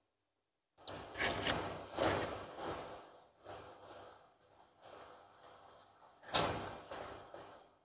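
Close-miked eating of spicy instant noodle soup with meatballs: a run of slurping and chewing bursts in the first three seconds, quieter ones after, and another loud burst about six seconds in.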